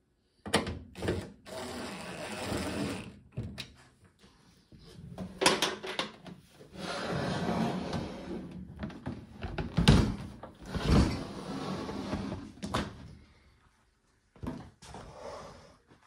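Handling noise of a microwave being reassembled: a DeWalt cordless drill briefly driving screws into its metal base near the start, then knocks, scrapes and clicks, with a loud thud about ten seconds in.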